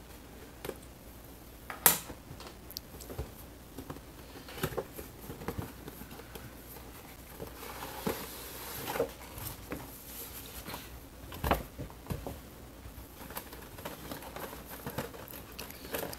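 Cardboard toy box being slit open with a hobby knife and a clear plastic clamshell tray slid out: scattered clicks, scrapes and crinkles of card and plastic, with a sharp click about two seconds in and a longer rustle about eight seconds in.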